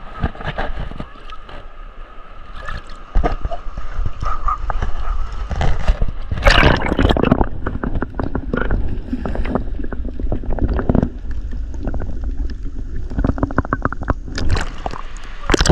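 Small Mediterranean waves washing and sloshing onto the beach, with a louder surge of water about six and a half seconds in.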